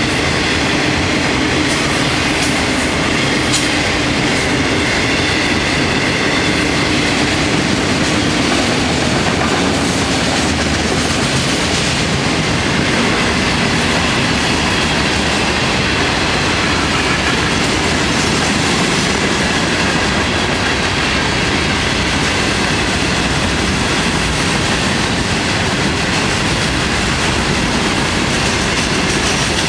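Freight cars of a long Florida East Coast Railway train rolling steadily past: the loud, even rumble and rattle of steel wheels on rail, with a few clicks over the rail joints. Faint thin squealing tones run through roughly the first twelve seconds.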